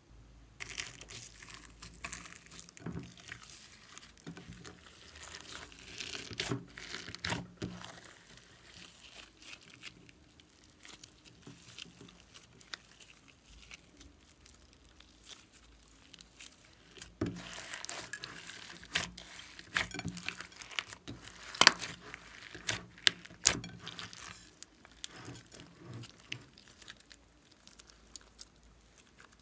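Hands stretching, folding and kneading glossy slime mixed with glitter and sequins: irregular wet crackling and crinkling, with sharp pops here and there, the loudest about 22 seconds in.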